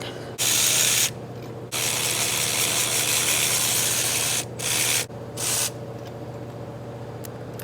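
Ratchet wrench clicking in several quick runs, one lasting nearly three seconds, as a spark plug is unscrewed from the 3.0 L V6.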